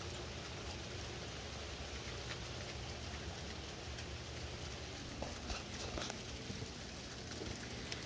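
Steady patter of falling rain outside, with a few faint light clicks about five to seven seconds in.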